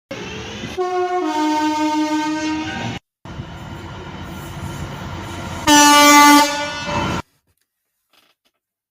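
Train horns: a two-tone horn held for about two seconds, stepping from the higher note to the lower, then, after a short break, a train running and a second, louder horn blast of under a second with a brief extra toot right after it, ending abruptly.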